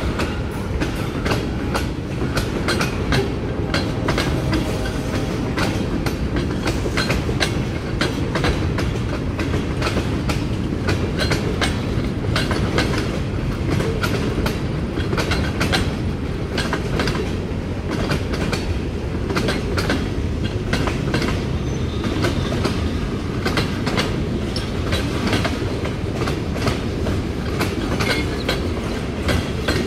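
Freight train cars rolling past: a steady noise of steel wheels on the rails, with frequent irregular clicks and clacks as the wheels cross rail joints.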